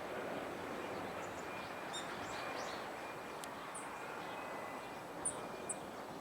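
Black-faced bunting giving short, very high call notes, scattered singly, with the two clearest near the end, over a steady hum of city background noise.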